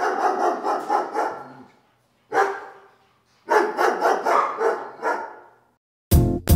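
A dog barking in three quick runs of barks with short pauses between them. Music with a steady, heavy beat starts near the end.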